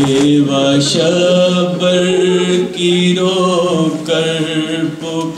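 A man reciting a noha, a Shia mourning lament, into a microphone, chanting in long held notes.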